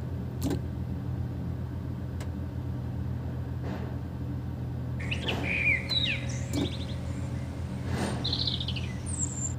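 Mobile crane's diesel engine idling with a steady low rumble. From about halfway through, birds chirp in a series of short, quick up-and-down calls.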